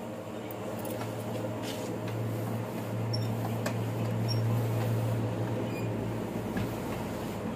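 Electric dry iron pushed back and forth over a shirt laid on a bed, the soleplate rubbing on the cloth, with a few small clicks. Under it runs a steady low hum that swells from about a second in and fades near the end.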